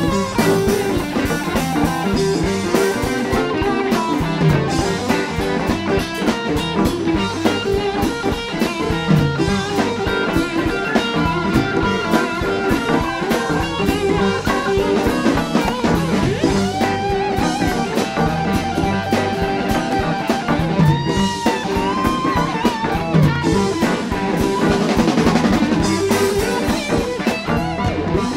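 Live blues-rock band playing an instrumental stretch: guitars over bass and drum kit with a steady beat. Long held melody notes come in around the middle, followed by a few bending notes.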